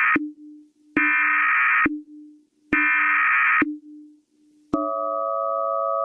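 Emergency Alert System SAME header: three buzzy, screeching digital data bursts about a second long each, the first already sounding at the start, with a faint low hum in the gaps. About 4.7 s in a steady, loud attention tone made of several pure tones begins, signalling that an alert message follows.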